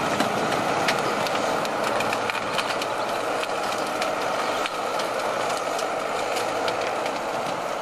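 Forestry tractor with a crane-equipped log trailer, its engine running steadily, with scattered sharp clicks and knocks.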